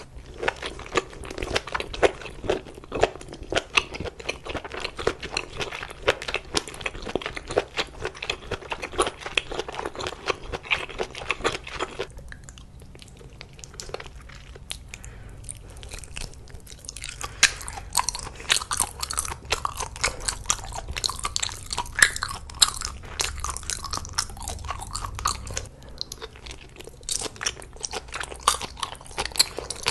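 Close-miked chewing and crunching of food: a dense run of sharp crunches and bites that eases off briefly a little before halfway, then picks up again.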